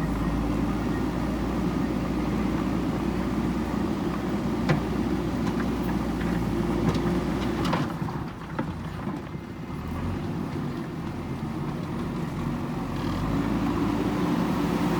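JCB backhoe loader's diesel engine running steadily under work, with a few sharp knocks. About halfway through the engine sound drops for a couple of seconds, then comes back.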